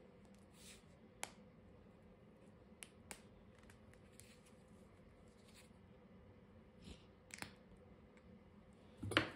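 A few faint, sharp clicks and light handling noises from gloved hands working an epoxy-coated steel blade, over quiet room tone.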